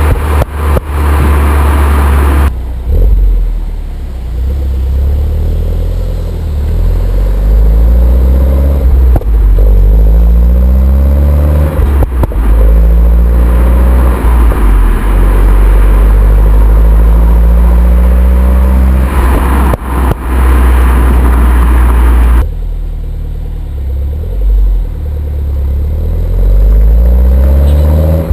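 2011 Mini Cooper S (R56) 1.6-litre turbocharged four-cylinder engine and stock exhaust being driven hard. The engine pitch rises in repeated sweeps as it accelerates through the gears, with a few sharp exhaust pops and bangs at the gear changes and on the overrun.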